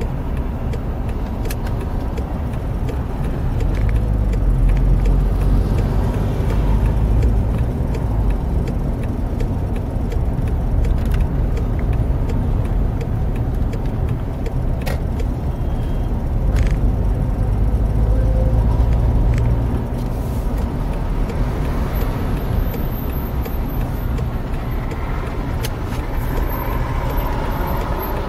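Engine and road noise of a moving road vehicle, heard from inside: a steady low rumble with tyre hiss, heavier through the middle stretch.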